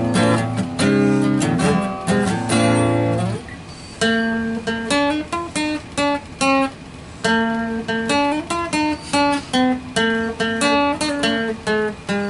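Acoustic guitar music: strummed chords for the first few seconds, then single picked notes in a rhythmic pattern.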